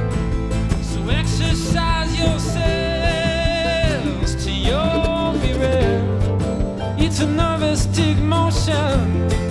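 Live band playing an instrumental break: a high lead melody of long notes that slide up and down and waver, over a steady bass and drums.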